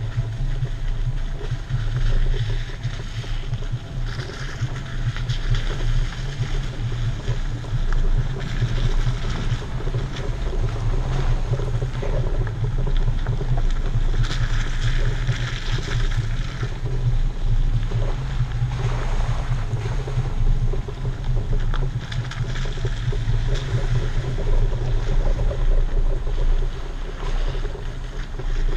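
Off-road vehicle driving along a dirt trail, heard from a camera mounted outside beside its front tire: a steady low rumble of engine and tires with wind buffeting the microphone.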